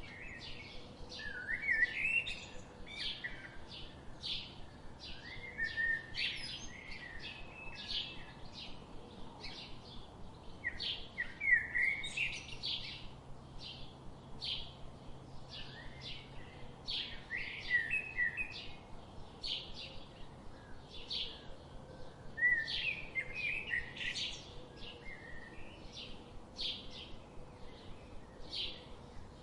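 Songbirds singing in a forest: one bird repeats a short high note about twice a second throughout, while another sings short warbling phrases every few seconds.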